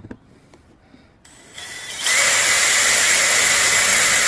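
Power drill with a 3/32-inch bit boring a small screw hole through a speaker mounting bracket. It starts about a second in, builds up, and then runs steadily at full speed.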